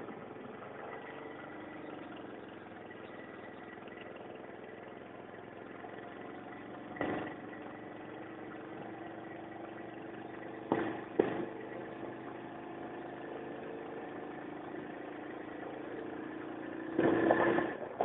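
Vehicle engine running with a steady hum, heard from on board while driving, with brief knocks about seven and eleven seconds in and a louder swell near the end.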